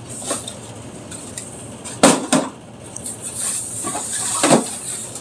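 Cardboard model-kit boxes being handled: a few dull knocks as boxes are set down against each other, the loudest pair about two seconds in and another near the end, with a short stretch of sliding and scraping between them.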